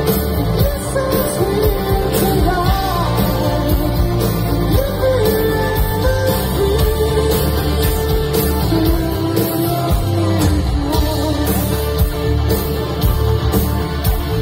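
Rock band playing live over a festival PA, recorded from the crowd: a male singer over electric guitars, bass, keyboards and a steady drum beat.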